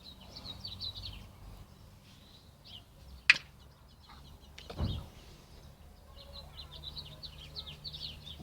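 Small birds chirping in rapid runs of short, high notes, with a sharp click about three seconds in and a dull thump a little under five seconds in.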